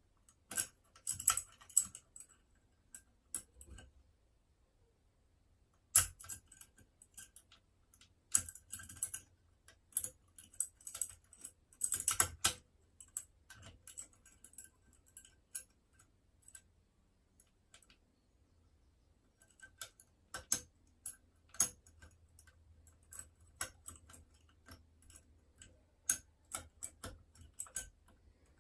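Small metallic clicks, ticks and scrapes of lock-picking tools working inside a Union Chubb 3G110 five-lever mortice lock, as the levers are lifted one by one under tension. The clicks come in irregular clusters with quiet pauses of a few seconds between them.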